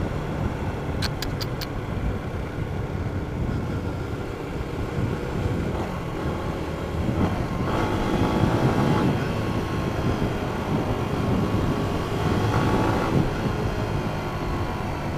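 Yamaha Jupiter MX King (Y15ZR) single-cylinder four-stroke running through its standard exhaust, picking up revs twice during the ride. Four quick clicks come about a second in.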